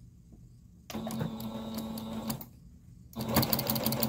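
Singer electric sewing machine stitching a straight seam through layered fabric: it runs for about a second and a half, stops briefly, then starts again and keeps running louder, with a rapid, even clatter of needle strokes.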